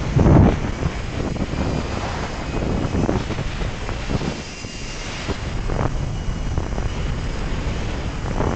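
Wind rushing and buffeting against the microphone of a rider speeding down a zip line, with a louder gust just after the start.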